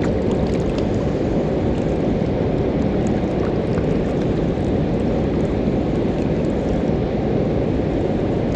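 Water pouring over a river dam spillway: a steady, unbroken rush heaviest in the low range.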